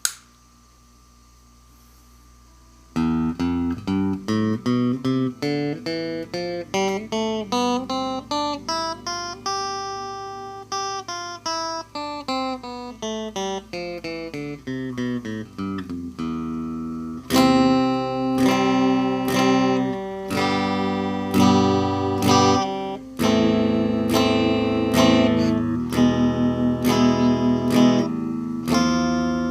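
Epiphone electric guitar played clean through a Cort CM15G combo amp. After a click and a few seconds of amp hum, single picked notes climb step by step and then fall back down, followed from about halfway by strummed chords.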